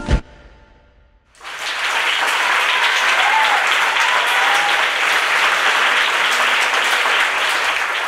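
Recorded dance music ends with its last note right at the start, and after about a second of hush a theatre audience breaks into steady applause, with a faint call or two rising above the clapping.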